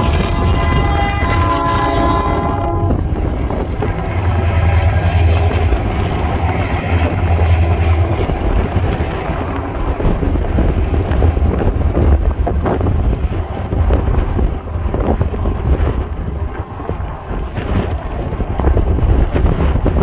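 Diesel locomotive's multi-tone air horn sounding for about the first three seconds, then a loaded coal train rolling past below, the wagons rumbling by. Strong gusting wind buffets the microphone throughout.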